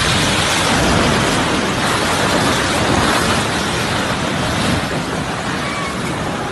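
A multi-storey concrete apartment building collapsing in an earthquake: a loud, continuous crashing rumble of falling concrete that begins just before and slowly dies away.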